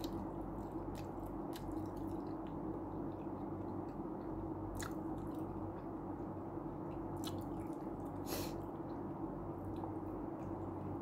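A person chewing and biting food, with soft, scattered mouth clicks, over a steady low room hum.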